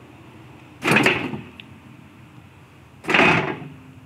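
A jack being let down to lower a BMW E46 coupé onto its freshly fitted coilovers and wheels. It is heard as two short rushes of noise about two seconds apart, each fading within half a second.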